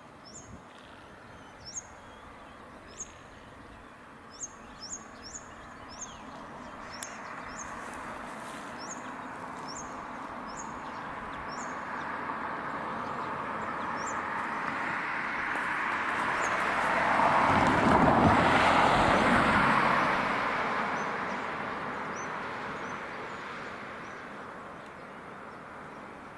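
A road vehicle passing by, its noise slowly swelling to a peak about two-thirds of the way through and then fading. A bird gives a string of short, high chirps through the first half.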